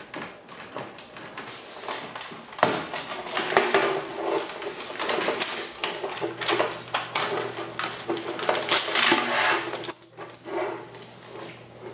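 Irregular clicks, knocks and rattling as a Hunter Pro-C sprinkler controller's plastic housing and its wires are handled and taken off the wall. A sharp knock about two and a half seconds in is the loudest.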